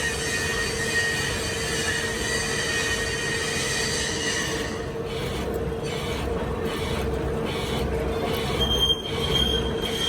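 Metalworking machinery running with a steady hum and a high metallic squeal. About halfway through, the high end starts to pulse in a regular beat, and a brighter squealing tone comes in near the end.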